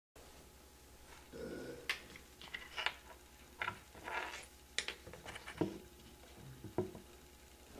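Scattered faint clicks, knocks and short rustles at irregular intervals over a steady low electrical hum.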